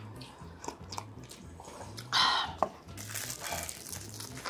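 Close-miked eating sounds: a loud slurp of ramen broth from a paper cup about two seconds in, then a crackly bite into a fruit sandwich near the end.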